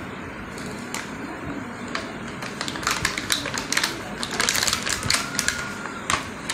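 Small plastic toy vehicles and their plastic blister packaging handled on a hard floor: a run of irregular light clicks and rattles, starting about two and a half seconds in and densest around four to five seconds.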